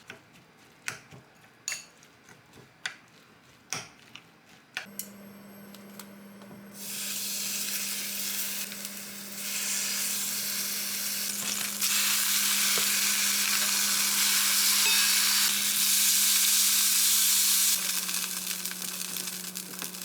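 A few light clicks and taps, then a steady low hum starts, then a loud, even sizzling hiss that steps up louder twice and drops back near the end, like food frying in a hot pan.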